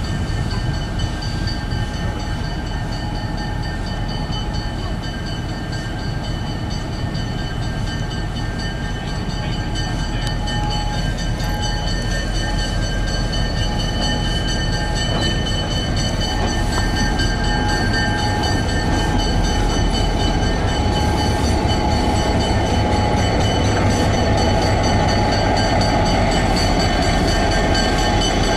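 A diesel locomotive, Swedish-built No. 244, running with steam locomotive 909 coupled behind, rolling slowly toward and past. The engine sound and train noise grow steadily louder as they approach.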